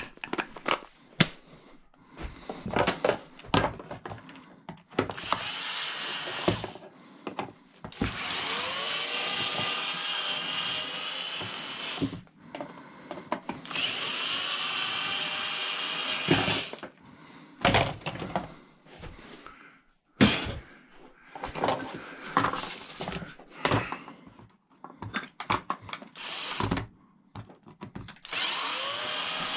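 Cordless drill running in several bursts of a few seconds each, its whine rising as the motor spins up at the start of each run. Between the runs there are sharp knocks and clatter of metal scrap being handled.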